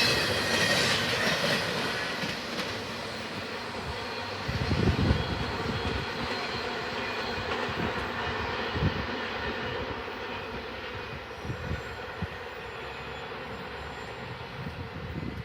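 Double-stack intermodal freight train rolling past and fading away, its wheel squeal dying out in the first couple of seconds and leaving a steady rumble, with a few low gusts of wind on the microphone.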